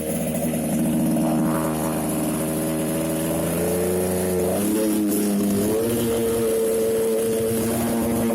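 Yamaha RX-King single-cylinder two-stroke engine with a rich ('basah') carburettor setting and a deep 'ngorok' exhaust tune, held at a raised steady speed. Its pitch climbs about halfway through, wavers briefly, then holds steady at the higher speed.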